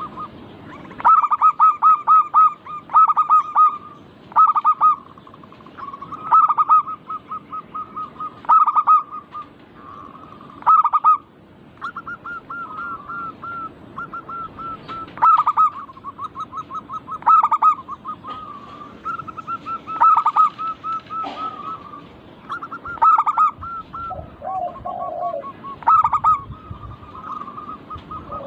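Zebra doves (perkutut) cooing in rapid staccato runs of short, clear notes, a loud run about every two seconds over quieter continuous calling from more than one bird.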